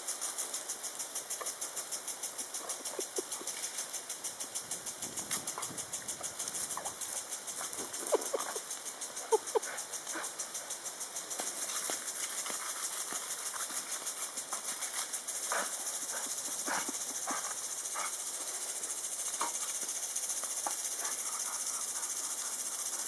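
Hissing spray of a garden-hose sprinkler's water jet, with a dog snapping and biting at the stream and making short mouth and breath sounds. There are two sharp snaps about eight and nine seconds in, and the hiss turns steadier and louder about halfway through.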